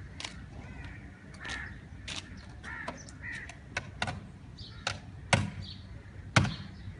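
Crows cawing now and then, among a scatter of sharp clicks and knocks; the two loudest knocks fall about five and six seconds in.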